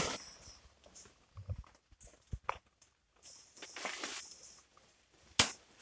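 Footsteps and rustling leaves as someone pushes through dense undergrowth, with a few sharp cracks: one at the start, one about two and a half seconds in, and a louder one near the end.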